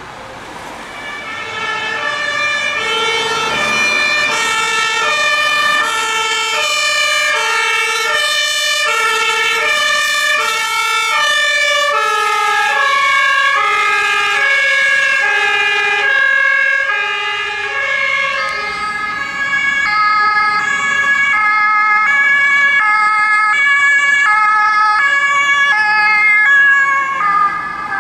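Several German two-tone emergency-vehicle sirens (Martinshorn) sounding at once, each stepping back and forth between two pitches and out of step with the others. They grow louder over the first couple of seconds as the vehicles approach.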